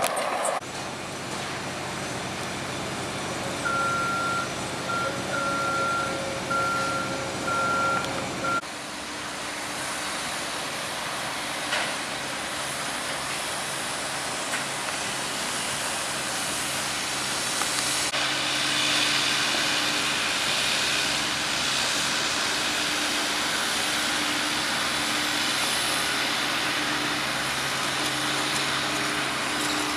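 Heavy construction machinery running, with a backup alarm sounding about six even beeps from a few seconds in. About a third of the way through, the sound changes abruptly to another engine running steadily with a faint pulsing hum.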